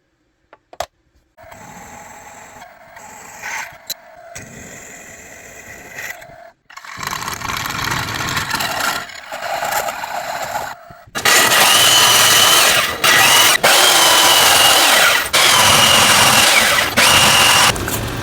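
A small electric tool running in bursts. It is moderate at first, then much louder with a steady high whine from about eleven seconds in, stopping and restarting briefly a few times.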